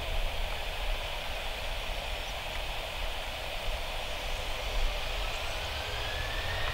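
Jet engines of a Boeing 737-900ER taxiing, a steady hiss over a low rumble. About five seconds in, a whine starts and rises in pitch.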